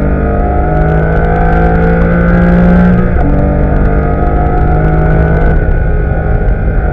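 Porsche Cayman S flat-six engine under full throttle, heard from inside the cabin: the pitch climbs with the revs, drops sharply on an upshift about three seconds in, then climbs again more slowly. The throttle is eased briefly near the end.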